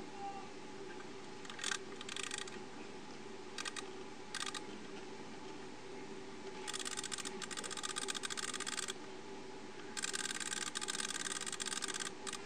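Vintage West German Gruber alarm clock movement, out of its case, giving bursts of rapid mechanical clicking. There are a few short bursts early on, then two longer runs of about two seconds each.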